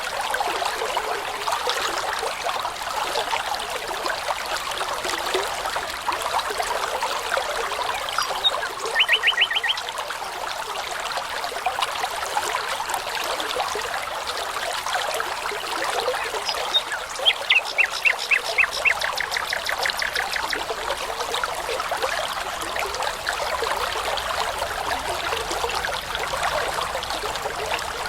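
Brook babbling steadily. A songbird sings a short fast trill of repeated notes about nine seconds in and a longer trill of repeated notes a little after halfway.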